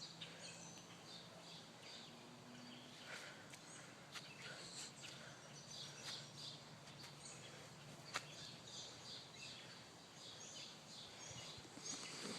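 Quiet outdoor ambience with faint, scattered bird chirps and one sharp click about eight seconds in.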